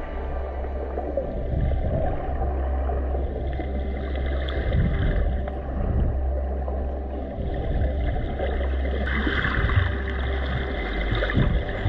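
Muffled underwater sound picked up through a camera's waterproof housing: a steady low rumble with sloshing and gurgling water.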